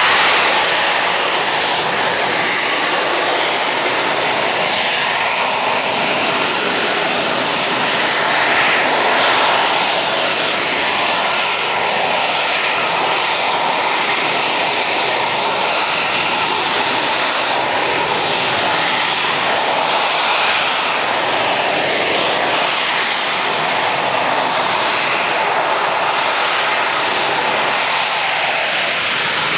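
Harrier jump jet's Rolls-Royce Pegasus engine giving a loud, steady jet rush during a display, swelling slightly near the start and again about nine seconds in.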